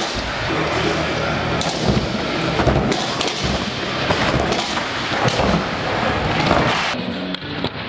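Skateboard wheels rolling on concrete and wooden ramps, with irregular clacks and thuds of the board striking the ramp surfaces.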